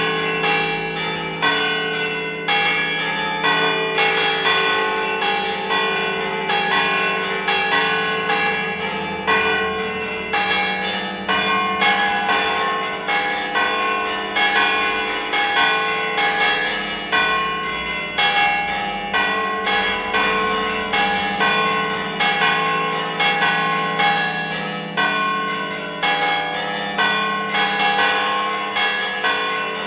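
Church tower bell ringing the call to mass: strikes in quick, continuous succession, each ringing on into the next over a lingering hum.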